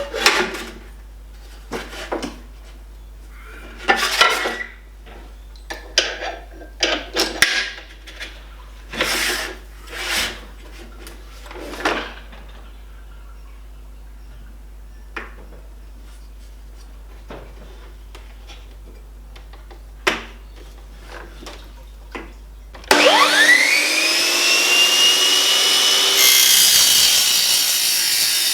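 Intermittent knocks and clatters of aluminium stock being handled and positioned, then about 23 seconds in a power saw fitted with an aluminium-cutting blade starts up loudly, its whine rising in pitch as the blade spins up and then running steadily.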